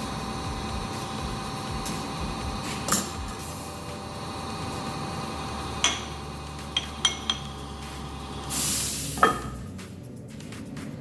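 Sharp metal clinks and clanks as a steel part is handled, over a steady hum. A short loud hiss comes about eight and a half seconds in, followed by a clank, and then the hum drops away.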